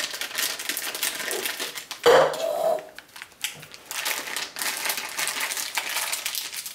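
Piping bag full of soap frosting being handled and pulled up, rustling and crinkling, with a louder handling noise about two seconds in.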